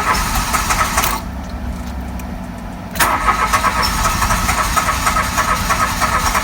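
Mitsubishi Mirage G4's starter cranking the petrol engine twice, a short try ending about a second in and a longer one starting about three seconds in, without the engine catching: the hard starting that the owner blames on air trapped in the fuel tank and line.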